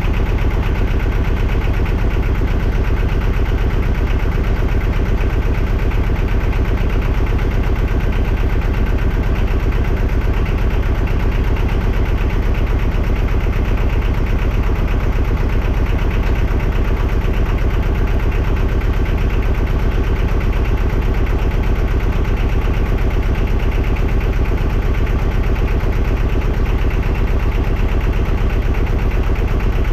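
Yanmar marine diesel engine running steadily at idle with a fast, even beat. It is drawing water, then antifreeze, from a bucket through its raw-water intake as it is winterized, and is running in gear with no propeller on the shaft.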